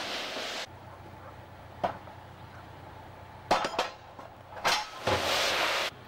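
Crushed-stone ballast rushing out of a tipped steel narrow-gauge V-skip tipper wagon, in one rush at the start and a longer, louder one near the end. Between them come a few sharp metal clanks from the skip body.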